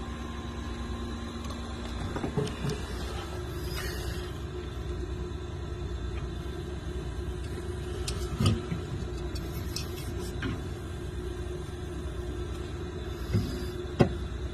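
Steady low hum of a refrigerated drinks cooler's fan and compressor, with a few light knocks and clicks near the middle and the end.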